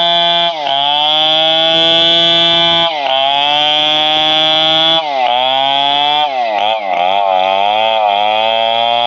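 Stihl 720 two-stroke chainsaw running at high revs while sawing wood. Its pitch drops sharply three times as the chain bites in under load, then climbs back each time, and wavers up and down a little past the middle.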